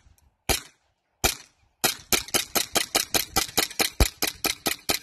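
Gas-powered airsoft Glock G17 pistol firing BBs: two single shots well apart, then from about two seconds in a fast string of about six shots a second.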